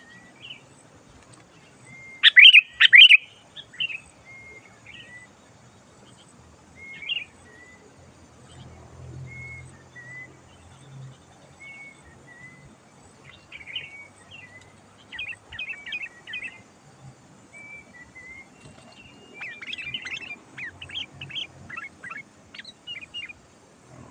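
Sooty-headed bulbul song: a loud run of bubbly notes about two seconds in, then scattered short whistled notes, with busier bursts of quick chattering notes in the middle and again near the end.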